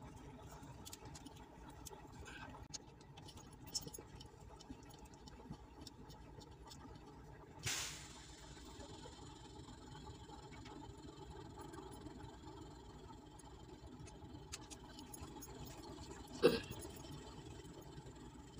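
Hand tools working the bolts of an opened diesel engine's cylinder head with a breaker bar and socket: scattered faint clicks, a sharp metallic clank about eight seconds in that rings briefly, and a louder knock near the end, over a low steady hum.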